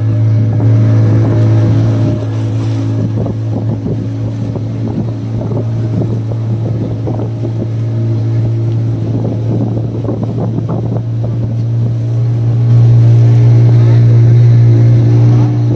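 Motorboat engine running steadily underway, a continuous low hum that grows louder about three-quarters of the way through.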